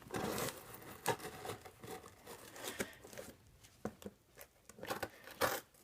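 Packing tape on a cardboard shipping box being cut and torn open: a short rasping tear, then scattered clicks and rustles of the cardboard.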